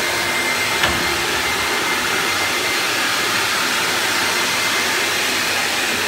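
Industrial vacuum dust extractor running, a steady rushing noise with a faint high whine. There is a single knock about a second in.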